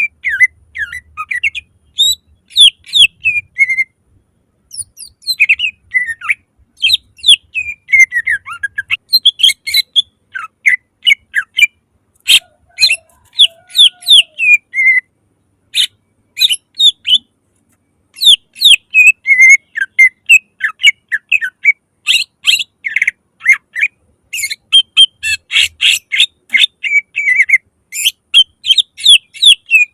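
Cucak ijo (green leafbird) singing loudly in fast runs of short chirps and downward-sweeping whistled notes, broken by a few brief pauses.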